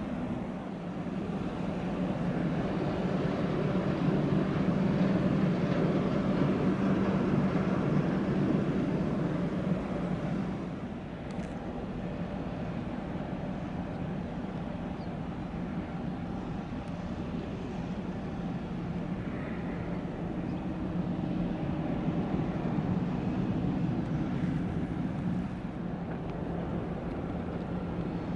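Steady low engine drone of a ship under way, with a broad rushing noise over it; it swells for the first ten seconds or so, then eases to a lower, even level.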